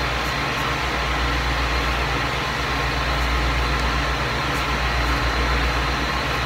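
Steady, unchanging low hum with a hiss over it: continuous background noise in the room.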